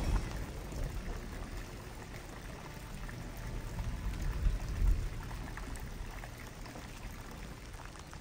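Steady rain falling on a wet paved lane, with water pouring and trickling. A few low rumbles come through about four to five seconds in.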